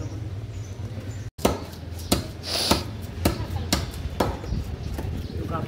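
Fishmonger's knife chopping fish on a cutting block: a steady series of sharp chops, about two a second, starting about a second and a half in, over a low background hum.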